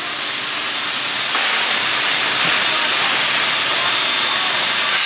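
Steam locomotive hissing steam at the coupling end: a loud, steady hiss that grows louder about a second and a half in.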